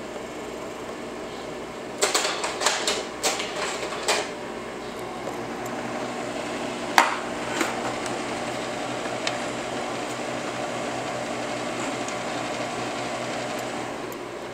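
Kodak Medalist AF Carousel slide projector running, its cooling fan giving a steady hum. A quick run of clicks and clunks about two seconds in, and a sharp click about seven seconds in, as the projector's controls are worked.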